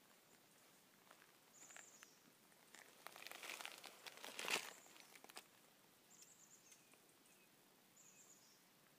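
Near silence outdoors, broken by a few faint high chirps and, about three seconds in, a brief crunching rustle lasting two seconds with one sharp click near its end.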